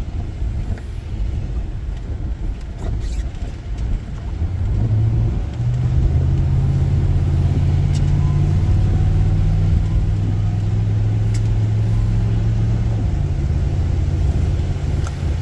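Car driving, heard from inside the cabin: a low rumble of engine and road noise. About five seconds in, a steady low drone comes up and gets louder as the car picks up speed, and its pitch shifts slightly near the end.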